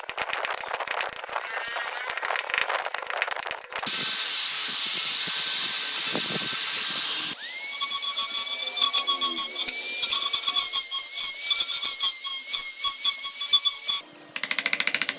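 Power tools working wood, heard in edited segments: a rapid rattling for about four seconds, then an even high hiss, then a steady high whine with fast pulsing for several seconds, with rattling again near the end.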